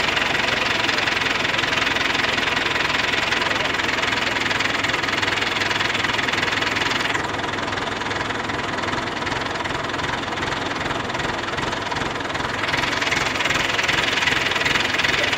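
Heavy engine running steadily at a constant speed, a little quieter for several seconds in the middle.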